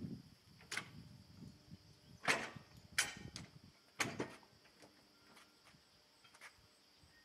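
Metal clanks and knocks from a heavy steel rear blade being fitted by hand to a compact tractor's three-point hitch: five sharp clanks in the first four seconds or so, then a couple of fainter taps.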